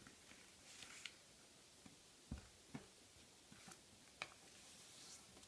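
Faint handling of A4 office paper being folded by hand into a paper airplane: soft rustles and creasing, with a few scattered light taps and clicks, the clearest about four seconds in.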